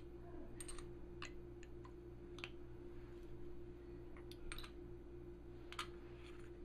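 Parts of a Smart Parts Epiphany paintball marker clicking and tapping as they are handled and fitted back together: about ten short, sharp clicks at uneven intervals over a steady low hum.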